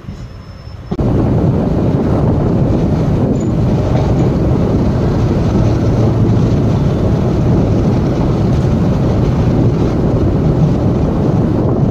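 Running noise of a moving passenger train heard from an open coach window: a steady rumble of wheels on rails that jumps suddenly louder about a second in.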